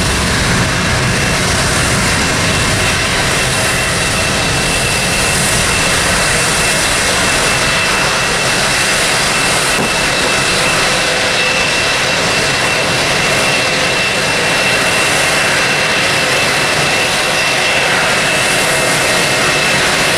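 Airbus A321's twin jet engines running as the airliner rolls along the runway: a steady rush of jet noise with a thin high whine over it.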